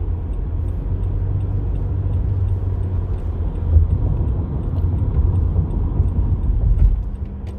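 Steady low rumble of a car moving at highway speed, heard from inside the cabin: engine and tyre road noise.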